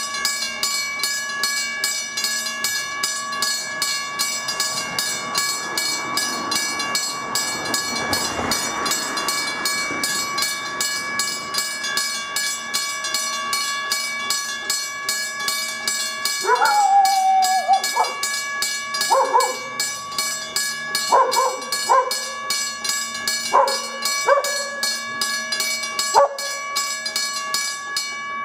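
Level-crossing warning bell ringing in rapid, even strokes as the crossing closes, stopping near the end once the barriers are down. A dog barks several times in the second half.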